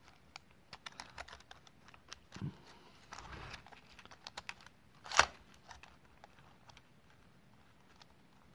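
Small scattered clicks and taps of fingers working 16mm film through the gate and claw of a GIC 16mm cine camera, metal parts and film handled by hand, with a brief scrape about three seconds in and one sharper click about five seconds in.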